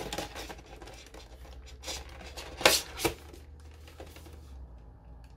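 Clear plastic window packaging of a boxed collector's model ship crinkling and clicking as it is turned over in the hands, with two sharper clicks a little past the middle.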